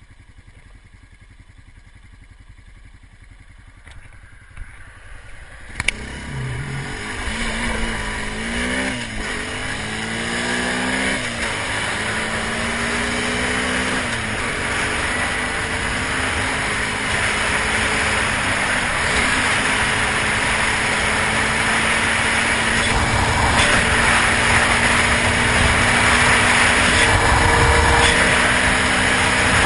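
Honda ATV engine pulling away about six seconds in. Its pitch climbs and drops back several times as it shifts up through the gears, then it runs steadily at road speed, with wind rushing over the mic growing louder toward the end.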